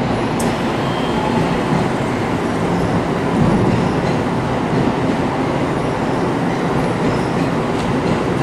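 Odakyu Line electric commuter train pulling out of the station platform, with a steady noise of motors and wheels on the rails. There is a sharp click about half a second in.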